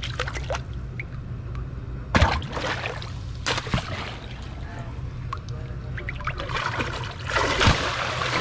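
Water splashing and sloshing as fish scraps are swished by hand at the surface and fish swirl up at the bait: a sharp splash about two seconds in, another a second or so later, and a longer, louder run of splashing near the end. A steady low hum runs underneath.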